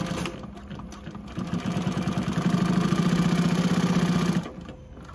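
JUKI LU-1510N-7 walking-foot industrial sewing machine stitching through thick layered fabric. It runs lighter for the first second or so, then hums steadily with a fast stitch rhythm, and stops about four and a half seconds in.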